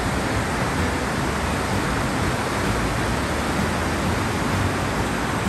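Caunahue River rushing: the steady, unbroken noise of fast-flowing water.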